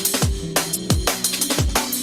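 Drum and bass music: fast breakbeat drums with kicks that fall in pitch, over sustained bass notes.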